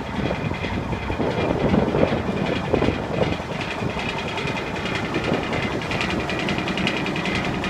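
Cummins N14 inline-six diesel of a Kenworth T800 dump truck running at idle, heard from beside the rear axles as a steady, pulsing clatter. There is some irregular, louder rattling between about one and three seconds in.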